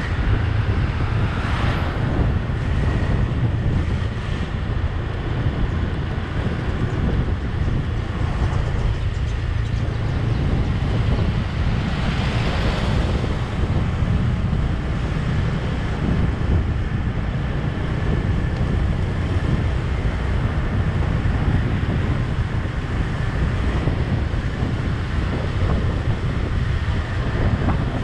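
Steady low wind rumble on the microphone of a camera mounted on a moving vehicle, with road and engine noise underneath; a brief louder hiss swells and fades about twelve seconds in.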